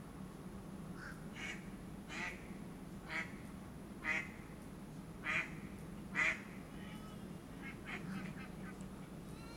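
A bird calling repeatedly in short calls, about one a second, the loudest about four to six seconds in, with fainter calls near the end. A steady low hum runs underneath.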